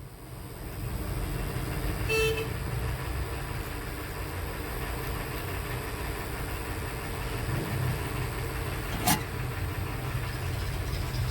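Steady low rumble like passing traffic, with a short vehicle-horn toot about two seconds in and a sharp click about nine seconds in.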